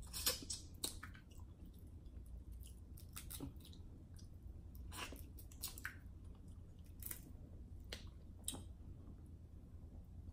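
Close-miked chewing and lip smacking as crab meat is eaten, with scattered sharp clicks from crab shell being picked apart by hand.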